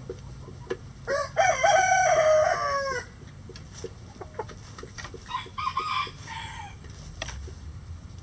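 A rooster crows once, a loud call of about two seconds that starts about a second in and drops in pitch at the end. A few softer hen clucks follow, over faint scattered ticks of scratching and pecking.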